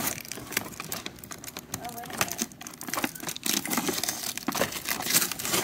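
Cardboard toy packaging being handled: flaps and an insert bent and pulled apart, with irregular crinkling and rustling.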